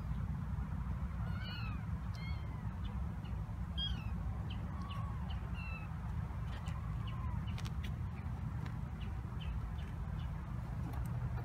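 Young kittens, about four weeks old, mewing: several short, high-pitched mews scattered through the first two-thirds. A steady low rumble runs underneath.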